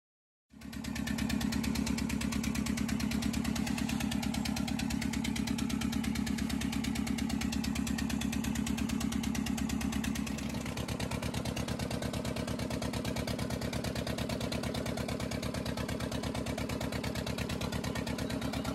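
A fishing boat's engine running steadily while under way, with a rapid, even beat. The sound cuts in about half a second in. About ten seconds in it drops a little in level and changes tone.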